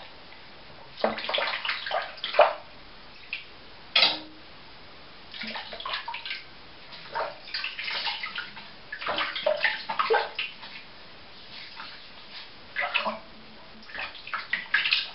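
Water splashing in short, irregular bursts with brief pauses between them, during preparation for a wet shave.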